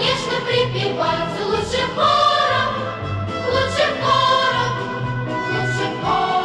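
Music with singing voices over a repeating bass line.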